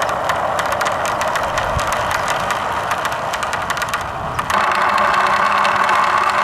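Marbles rolling down a marble-run track with a rapid run of clicks and clatter. About four and a half seconds in, the sound changes abruptly to a steadier, smoother rolling rumble.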